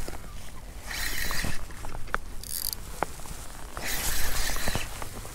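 Spinning reel being cranked in short bursts of under a second while a hooked pike is played on a bent rod, with scattered small clicks and a steady low rumble of wind on the microphone.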